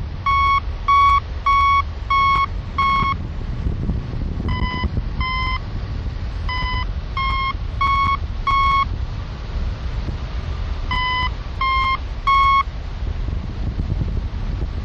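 Hang-gliding variometer beeping in short runs of about one and a half beeps a second, with pauses between runs: its climb tone, signalling that the glider is rising in lift. Underneath, a steady rush of wind from the airflow over the microphone.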